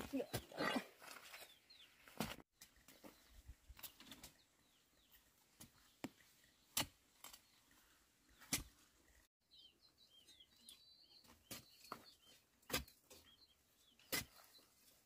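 A metal digging bar jabbed repeatedly into stony soil, a sharp thud every second or two. Small birds chirp faintly in the background, mostly in the second half.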